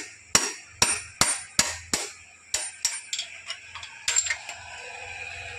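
Hammer blows on a metal rod driving out a motorcycle's worn steering-head bearing cup. Sharp metallic strikes, each ringing briefly: about eight in quick succession over the first three seconds, then a few more spaced further apart.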